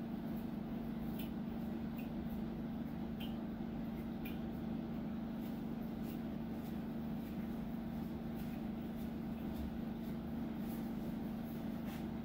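A steady low hum of the grooming room, with faint, irregular light ticks of a comb working through a Yorkshire Terrier's matted tail hair.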